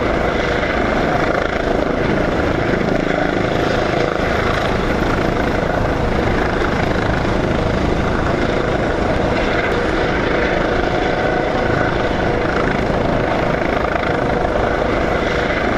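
Small drone's propellers and motors whirring steadily in flight.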